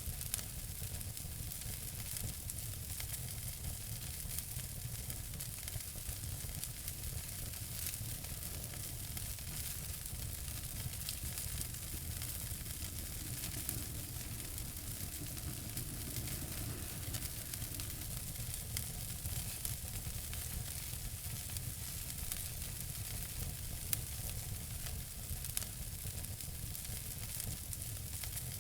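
Wood fire burning in a fireplace, crackling steadily with frequent small sharp pops over a soft hiss and a low rumble.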